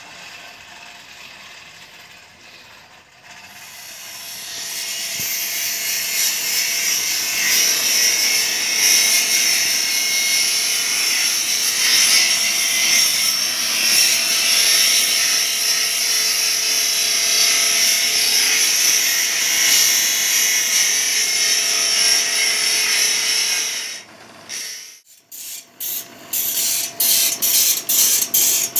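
Motor-driven grinding wheel sharpening the teeth of a steel sawmill bandsaw blade: a steady, loud, high hiss of stone on steel. Near the end it breaks into short quick strokes, about two or three a second, as the teeth are ground one at a time.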